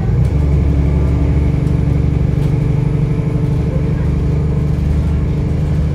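City bus engine running steadily, heard from on board: a loud low drone with a steady held tone over it that sets in just after the start and stops near the end.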